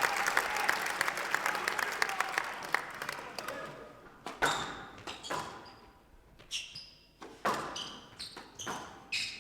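Spectator applause dying away, then a run of separate sharp knocks in the court: a squash ball struck and bouncing, some knocks with short high squeaks.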